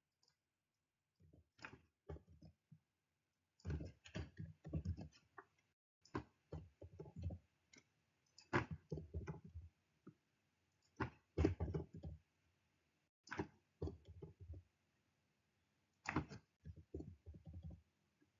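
Faint computer keyboard typing and mouse clicks, in short bursts of keystrokes with brief pauses between, as an equation is edited.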